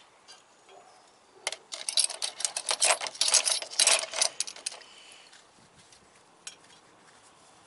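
Chrome-plated steel Whitworth sockets clinking and clattering against each other as they are taken out of a vinegar bath: a quick run of metal clicks lasting about three seconds, then a few single clicks.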